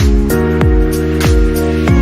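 Background music with a steady beat: held chords over a low drum hit roughly every 0.6 seconds.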